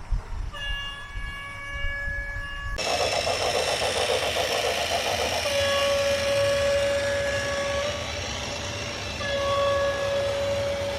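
A horn sounding in long, steady, single-pitched blasts over a continuous rushing rumble. About three seconds in, the sound changes abruptly as if cut.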